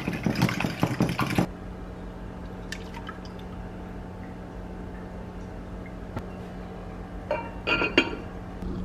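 Beaten eggs being whisked fast with a wooden utensil in a glass bowl, a rapid clicking that stops suddenly after about a second and a half. Then egg mixture pouring quietly into a ceramic pot over a low steady hum, and near the end a few sharp clinks as the ceramic lid is set on the pot.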